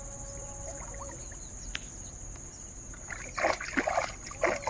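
A hooked fish splashing at the water's surface on the line, with a few short, irregular splashes in the last second and a half.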